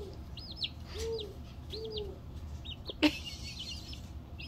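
Silkie chick peeping, a string of short high chirps about two a second, with a sharp knock about three seconds in.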